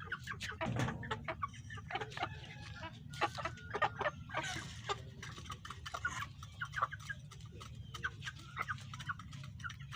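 A flock of two-month-old Tanaka-bloodline chickens clucking and peeping, many short calls scattered throughout over a faint low hum.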